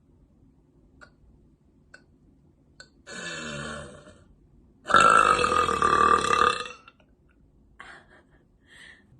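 A woman burping: a long, loud burp of about two seconds, starting about five seconds in, after a shorter, quieter sound a second or so earlier.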